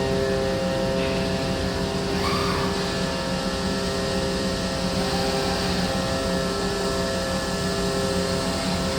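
Overhead-robot CNC router trimmer running, a steady machine drone with several constant tones. A brief rising whine comes about two seconds in.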